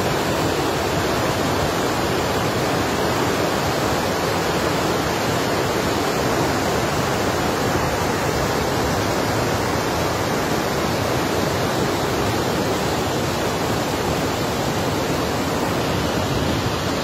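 Rushing water: a steady, unbroken rush of flowing water.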